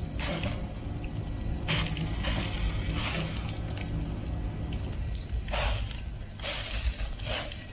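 Hand trigger spray bottle squirting water onto the hot charcoal under a grill: about seven short hissing sprays, some in quick pairs, each with the trigger's click. The water damps the coals so they don't flare up and burn the meat.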